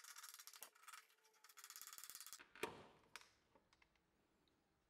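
Small carbide scraper rasping old glue and dirt off a table's particle-board edge in quick, faint strokes that stop about halfway through, followed by two sharp knocks.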